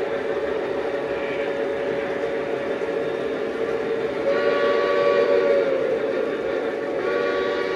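O scale model diesel locomotive's onboard sound system blowing its horn, a steady multi-note chord that swells louder about four seconds in and again near the end, over the running noise of the model trains on the track.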